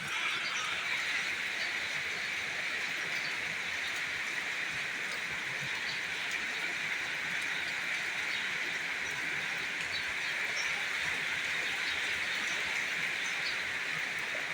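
Steady rain falling, an even hiss that comes in suddenly at the start and holds steady throughout.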